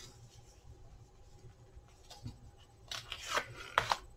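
Bubble-wrap packaging being handled: faint at first, then a short burst of crinkly rustling about three seconds in.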